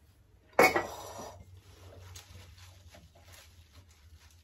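A small glass jar knocked down onto a stone worktop about half a second in, then wooden salad servers tossing dressed lettuce in a bowl: faint, irregular rustling of leaves and light taps of wood.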